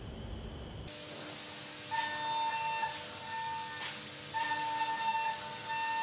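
High-speed end mill milling aluminium in a CNC machining centre. A steady hiss starts suddenly about a second in, then a steady high cutting whine rises over it, breaking off briefly twice.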